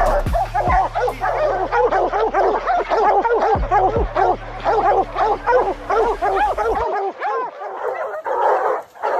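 A pack of bear hounds baying up at a treed bear: many rapid, overlapping barks and bawls from several dogs at once, with no pause. It is the hounds' tree bark, the sign that the bear is treed. About seven seconds in, the sound changes abruptly as a low rumble drops out, but the baying goes on.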